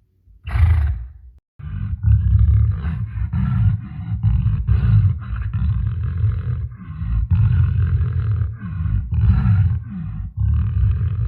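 A large animal roaring low and rough, broken into rapid short pulses, after a brief call just at the start.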